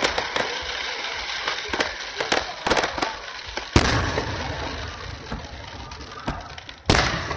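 Aerial fireworks going off: a dense stream of sharp crackling pops, broken by two loud booms about four seconds in and near the end.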